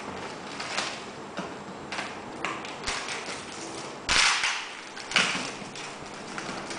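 Paper sleeve and plastic wrap on a cardboard box rustling and ripping as they are cut and torn off, in a series of short rips with the loudest tear about four seconds in and another sharp one a second later.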